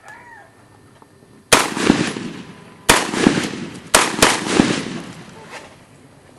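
Gunshots from a semi-automatic firearm: about five sharp shots fired at an uneven pace, each trailing off in an echo.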